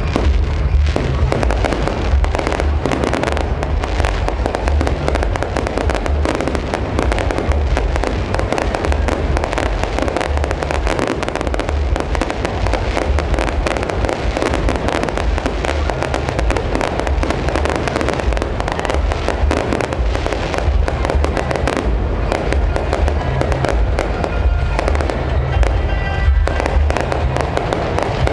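Fireworks display in a dense, continuous barrage: rapid overlapping bangs and crackles over a heavy low rumble, with music playing underneath.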